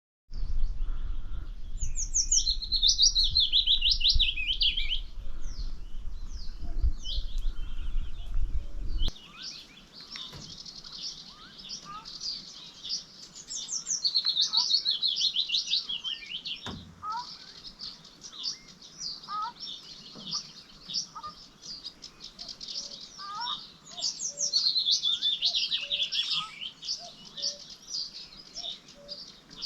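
Several songbirds singing. One bird repeats a loud, fast trilling phrase about every eleven seconds, among shorter chirps and calls. A low rumble lies under the first nine seconds and cuts off suddenly.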